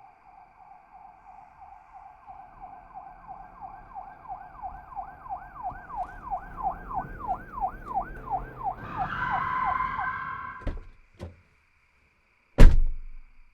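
Sound-effect police-style siren wailing up and down rapidly, growing louder as it approaches, then a brief screech and the siren cutting off suddenly. Two sharp clicks follow, then a single loud bang near the end, the loudest sound.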